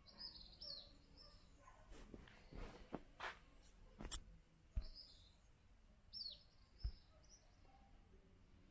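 A small bird's short, high chirps, a few at a time, some sliding quickly downward, with faint background noise and scattered soft clicks and knocks.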